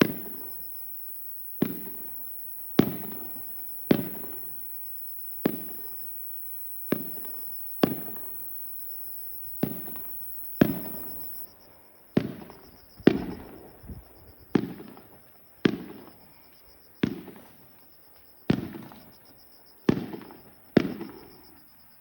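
Aerial fireworks shells bursting at a distance, about eighteen sharp bangs roughly a second apart, each trailed by a rumbling echo that dies away.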